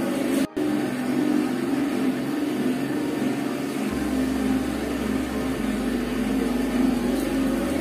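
Hand-cranked cotton candy machine running: a steady mechanical whir and rumble from the spinning head as it throws out melted coloured sugar. The sound drops out briefly about half a second in.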